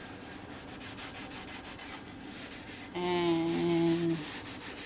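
Cloth rubbed back and forth over a wooden cutting board, working oil into the wood in rhythmic wiping strokes. About three seconds in, a louder steady humming tone sounds over the rubbing for about a second.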